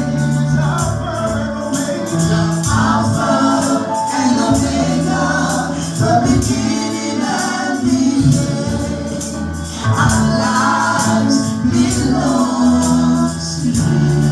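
Gospel music: a choir singing over a band, with a tambourine keeping a steady beat above held bass notes.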